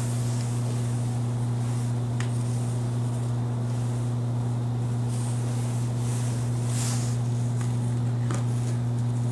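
A steady low electrical hum throughout, with a few faint light clicks and rustles from small parts being handled.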